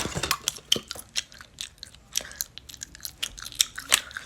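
Irregular crisp crunches and clicks, several a second, with a loud one right at the start.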